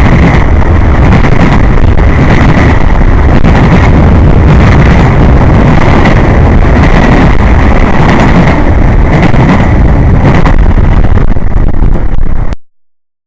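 CSX freight train rolling past close by: a loud, steady rumble of wheels on rail with a high ringing tone running through it. It cuts off suddenly near the end.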